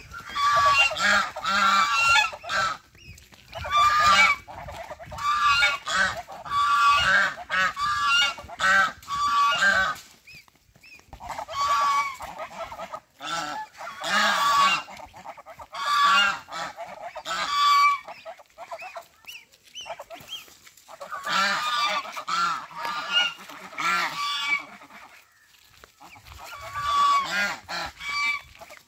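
Domestic geese honking repeatedly in bouts, several birds calling over one another, with a few quiet gaps of a second or two between bouts.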